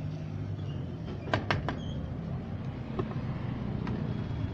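Steel ladle clinking against stainless-steel pots: three quick ringing clinks about a second and a half in, then two lighter clicks later. A steady low rumble runs underneath.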